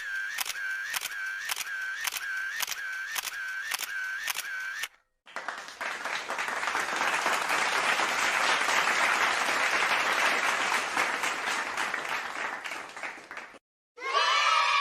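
Camera shutter clicks in quick succession, a little over two a second, about a dozen in all, each with a short tone. After a brief gap comes applause that builds and then fades away over about eight seconds.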